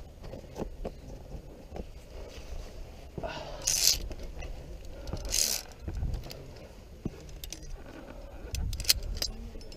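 Via ferrata lanyard carabiners clinking and clicking against each other and the steel safety cable as a climber moves along it. There are many small metallic clicks, and two longer scraping rushes, the first about three and a half seconds in and the second about five and a half seconds in.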